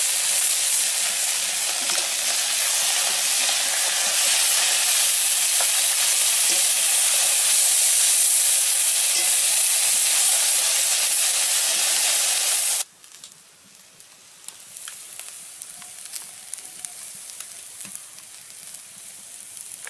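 Fish frying in hot oil in a karai: a loud, steady sizzle that cuts off suddenly about thirteen seconds in, leaving a much fainter crackle with scattered small ticks.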